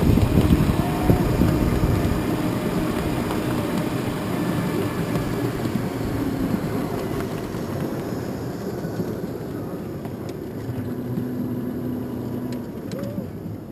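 Ride-on miniature tram running along its narrow-gauge track: the steady running noise of its wheels on the rails, with a few faint steady tones, growing gradually quieter.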